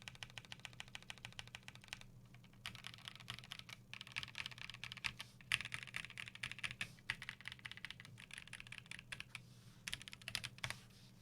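Fast typing on a KBD8X mk2 custom mechanical keyboard with lubed Gazzew Boba LT switches, a polycarbonate plate and PBT keycaps: rapid keystrokes in long runs, with a brief pause about two seconds in and another near the end.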